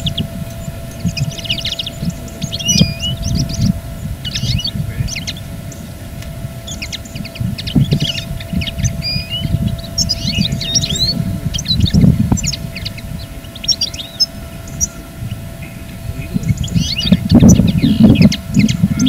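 Many small songbirds chirping and twittering in quick, short trills, over a low rumbling noise that grows loudest near the end, with a faint steady hum underneath.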